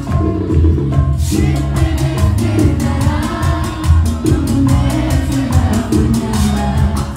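Live Latin dance band, bachata-style, playing loud, with a male lead singer over a bass line and a fast steady percussion beat; the high percussion drops out for about a second near the start, then comes back in.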